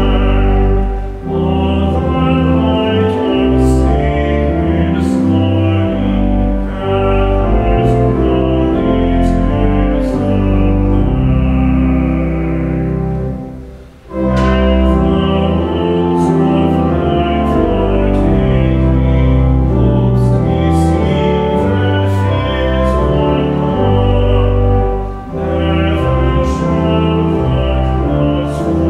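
Pipe organ accompanying sung hymn verses, held chords over deep pedal notes. There is a brief break between phrases about halfway through.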